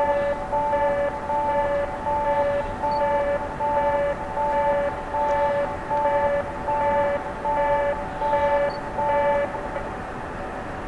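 Japanese railway level-crossing warning bell, an electronic two-tone chime repeating about twice a second over a steady background rumble, cutting off about nine and a half seconds in.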